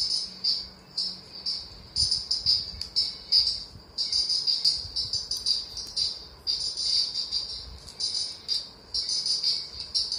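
Insect chirping: a high, shrill trill in repeated bursts of half a second to a second or so, with short breaks between them.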